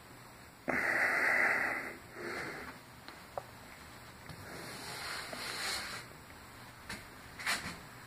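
A person breathing heavily while holding a headstand: a loud breath about a second in, a shorter one just after, then a softer, hissier breath past the middle, with two brief clicks near the end.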